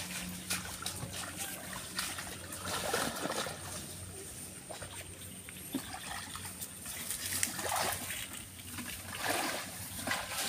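Feet wading through shallow muddy ditch water: irregular sloshing and splashing, with the biggest splashes about three, seven and a half and nine seconds in.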